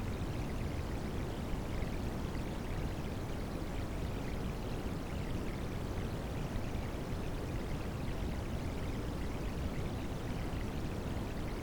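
Steady rushing water sound layered with white noise, an even hiss with its weight in the low end that does not change.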